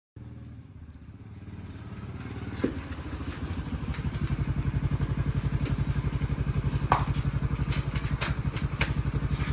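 A vehicle engine idling with a fast, even pulse, growing louder over the first few seconds and then holding steady, with a few light clicks and clatters over it.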